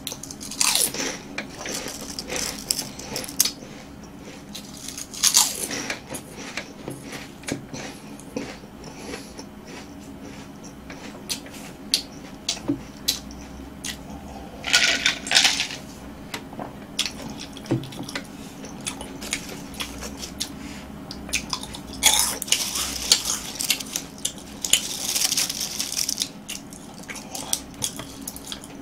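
Close-miked eating of crisp snack crackers, Homerun Ball choux cookie balls and Kkobuk layered corn chips: crunching, chewing and the small clicks of pieces being picked up and set down on a wooden board. Around the middle come a few quick gulps of water. Later there is a longer stretch of louder crunching.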